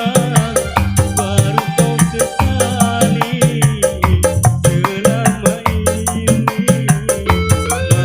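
Dangdut koplo music from an orgen tunggal keyboard setup: a fast, busy drum rhythm over a steady bass line, with a wavering melody line above.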